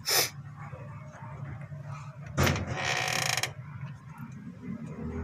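Metal parts of a disassembled power steering pump being handled: a sharp click at the start, then a knock a little over two seconds in followed by about half a second of scraping, over a steady low hum.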